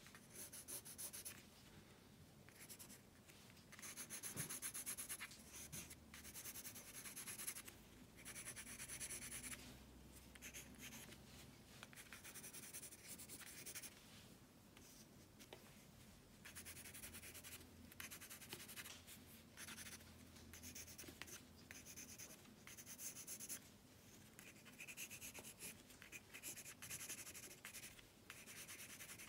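Faint pencil scratching on paper in runs of quick sketching strokes, broken by short pauses.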